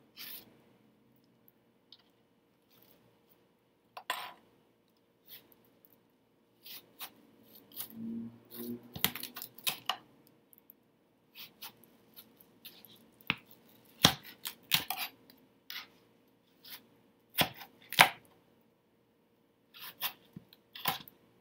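Chef's knife cutting cantaloupe and knocking on a cutting board: irregular sharp chops with quiet gaps between them.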